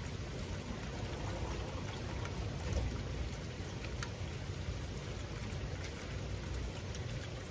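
Steady rainfall, a continuous wash of falling rain with scattered individual drops ticking sharply now and then.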